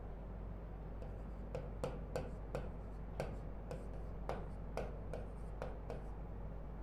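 Marker pen writing on a whiteboard: a run of short, irregular taps and squeaks as letter strokes are drawn, over a faint steady hum.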